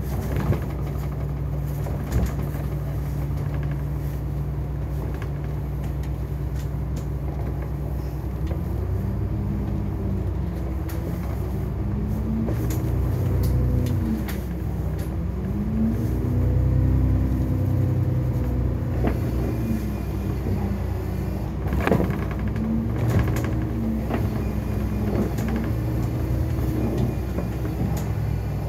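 Double-decker bus running, heard from the upper deck: a steady rumble with an engine note that rises and falls several times from about a third of the way in as the bus speeds up and slows on the winding road. A few sharp knocks and rattles break through now and then.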